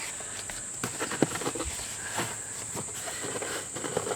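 Plastic interior trim being worked loose from a Kia Forte's dash beside the door: scattered small clicks, knocks and scrapes over a steady high-pitched whine.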